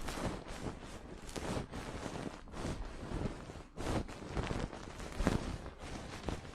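ASMR ear cleaning: an ear-cleaning tool scraping and tapping in a binaural microphone's ear, an irregular run of close, scratchy crackles, over a steady rain background.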